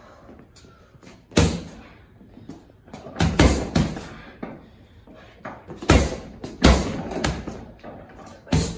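Boxing gloves punching a hanging leather heavy bag: about eight thudding hits, single shots and quick two- and three-punch combinations, irregularly spaced.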